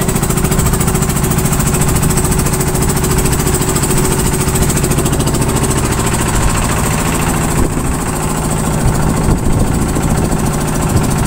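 A lift-net fishing boat's engine running steadily with a fast, even throb, loud and close.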